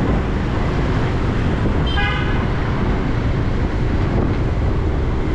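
Steady rumble of street traffic and wind, heard from a moving motorbike, with one short vehicle horn toot about two seconds in.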